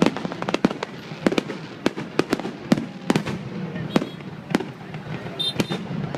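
Fireworks going off: a quick, irregular run of sharp bangs and cracks, several a second, over a steady background noise.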